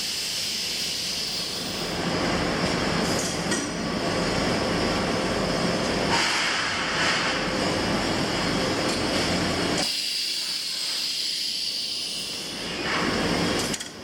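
Steady din of machinery on a leather watch-strap factory floor, a continuous hiss with a few light metallic clinks. The low rumble drops away about two-thirds of the way through.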